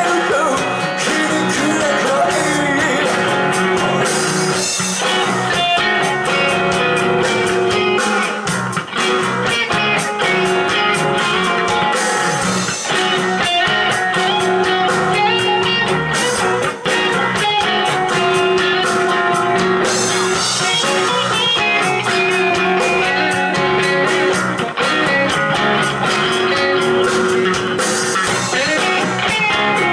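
Live rock band playing an instrumental passage: electric guitars over bass guitar and a drum kit.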